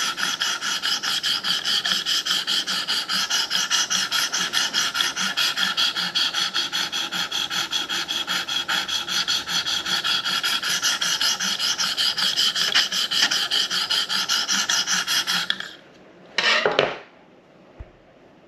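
A 300-grit sharpening stone on a KME guided knife sharpener rasping along a steel knife blade in rapid, even back-and-forth strokes, working the edge to raise a burr. The strokes stop near the end, followed by one brief loud noise.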